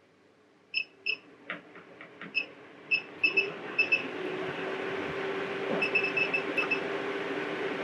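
MaxxAir Fan Deluxe roof vent fan's control panel beeping as its buttons are pressed: about ten single beeps in the first four seconds, then a quick run of beeps near six seconds, with a few button clicks. A steady motor hum from the fan starts about three and a half seconds in and keeps going.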